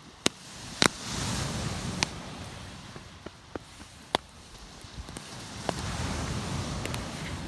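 Wood campfire crackling, with sharp irregular pops, over two swells of rushing noise that rise and fade.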